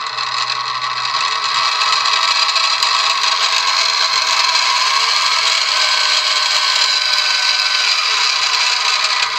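Craftex CX605 mini milling machine running under no load at about 1,000 RPM, its spindle motor and gear drive giving a loud, steady whine and rattle that the owner calls a little noisy. It spins up over the first second or so and shuts off at the very end.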